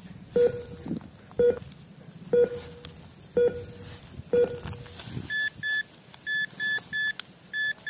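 Toy treasure-finder wand beeping: short low beeps about once a second, then from about five seconds in quicker, higher beeps about three a second, signalling that it is closing in on hidden toys.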